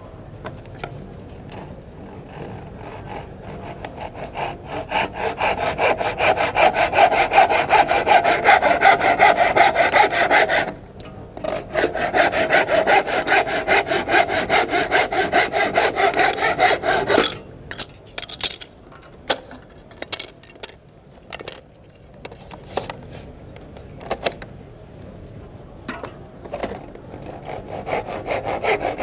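Hand back saw cutting through hardwood strip flooring with quick, even strokes, trimming overlapped strip ends by hand. The sawing builds up over the first few seconds, breaks off briefly, runs on, then stops for a stretch of scattered light knocks and taps, and starts again at the very end.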